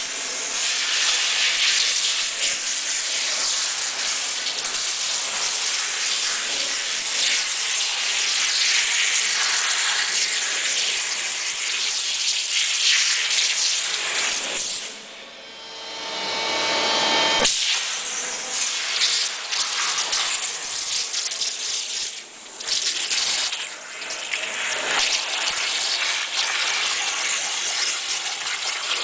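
CNC waterjet cutting machine's high-pressure water jet hissing steadily as it cuts. It drops away about fifteen seconds in and comes back suddenly two or three seconds later, with two brief dips after that.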